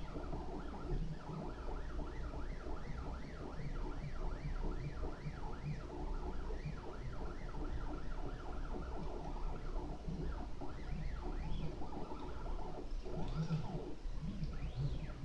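Prusa i3 RepRap 3D printer's stepper motors whining in quick, repeated rising and falling chirps as the print head and bed move back and forth while printing, over a steady low hum.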